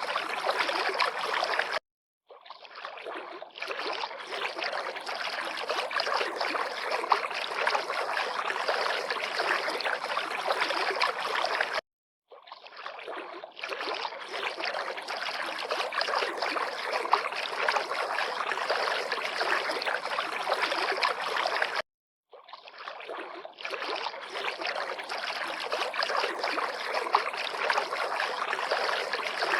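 River water lapping and rushing in a steady, even wash of sound. It drops out to silence briefly three times, about ten seconds apart, and fades back in each time.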